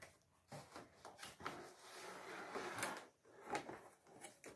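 Faint packaging sounds as a ring light is pulled out of its cardboard box and plastic wrapping: a few light clicks and knocks, and a longer rustle near the middle.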